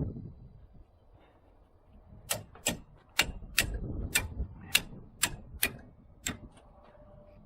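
A run of about nine sharp clicks, a little over two a second, then a few fainter ones near the end.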